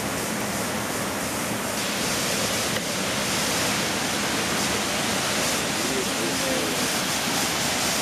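Waterfall rushing steadily, with faint chatter of people mixed in.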